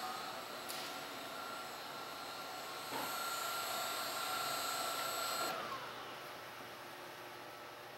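Electric machinery running with a steady whine over a hiss, growing a little louder about three seconds in. The high part of the sound stops abruptly about five and a half seconds in, leaving a fainter hum.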